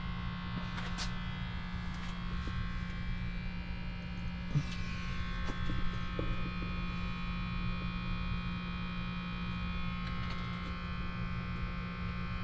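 Steady machine hum with a buzz, unchanging throughout, with a few faint clicks.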